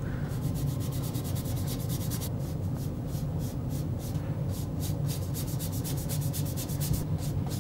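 Bristle brush scrubbing thinned raw umber oil paint onto a gessoed panel in quick back-and-forth strokes, several scratchy strokes a second, more distinct from about two seconds in.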